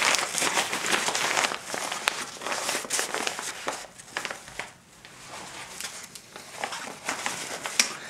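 The fabric of a collapsible Roundflash beauty dish rustling and crinkling, with small clicks, as it is twisted and folded down by hand. It is loudest in the first few seconds, then quieter.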